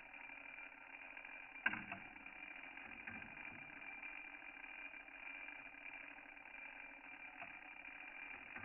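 Cuckoo clock movement working its strike train, heard faintly over a steady hum: one sharp mechanical click about two seconds in, with a short ringing after it, and a few much fainter clicks later.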